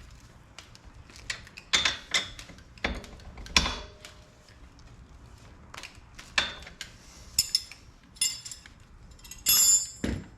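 Metal hand tools clinking and knocking as bolts are refitted on an ATV's rear end: a string of separate sharp metallic clicks and taps, with a brief rasping burst near the end.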